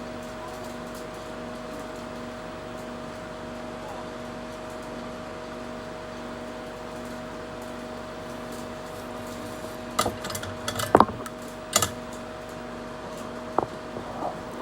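Steady hum of a fume extractor's fan at a workbench. About ten seconds in come a few sharp clicks and knocks, and one more near the end.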